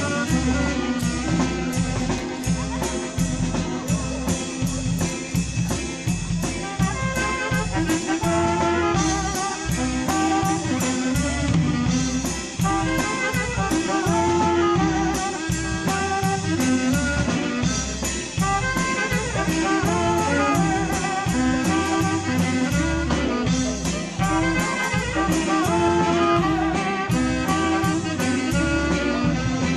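Waila (chicken scratch) band playing a tune: a melody line over bass, driven by a steady drum beat.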